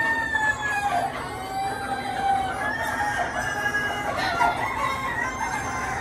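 A flock of chickens: several roosters crowing over one another in long, overlapping calls, with hens clucking.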